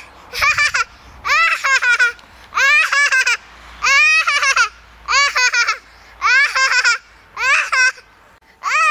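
A toddler laughing hard: high-pitched laughter in short bursts, each a quick run of ha-ha pulses, about one burst a second, eight or so in a row.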